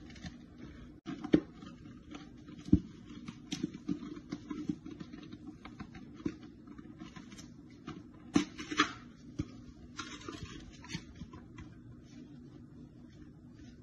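Comet powdered cleanser shaken from its can onto kitchen sponges: soft hissing bursts of falling powder, broken by a few sharp taps of the can, the loudest about a second and a half in, near three seconds and twice around eight and a half seconds.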